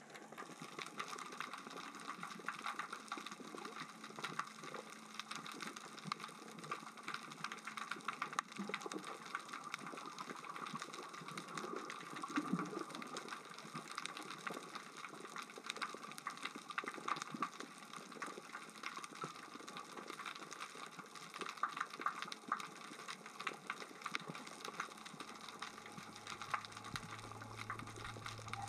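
Steady underwater crackling and clicking of small rocks rolling across the sea floor as the current and tide move them: a dense, continuous patter of tiny ticks.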